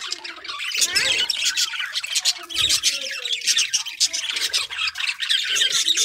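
A flock of budgerigars chattering and squawking: many short, high calls overlapping without a break.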